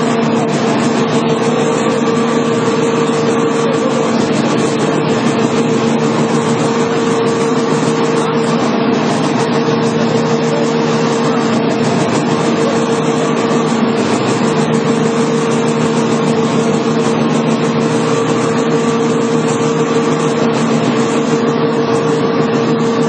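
SKJ3 550 pellet production line running: a steady, loud mechanical drone of the pellet-making machinery with a constant humming tone.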